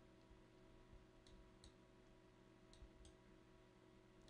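Near silence with faint computer mouse clicks: two pairs of clicks, a button pressed and released each time, about a second in and again near three seconds in, over a low steady hum.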